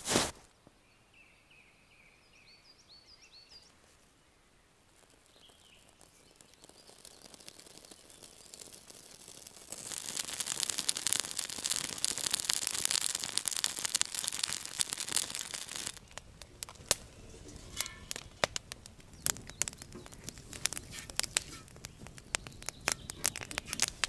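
Wood campfire burning: a bird chirps a few times near the start, then the fire's hiss builds up and grows loud, and in the last third it gives way to many sharp crackles and pops from the burning wood.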